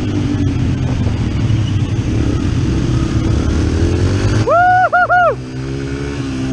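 Dirt bike engine running steadily, its pitch drifting up and down with the throttle, under wind noise. About four and a half seconds in, the rider lets out a short, loud, high-pitched "woo-oo-oo" in three pulses.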